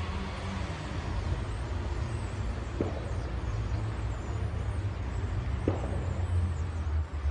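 Low, steady rumble of street traffic, with two brief sharper sounds about three and six seconds in.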